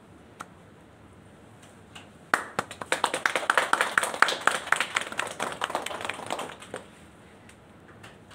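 A small group of people clapping by hand, starting abruptly about two seconds in, thickening, then dying away after about four seconds.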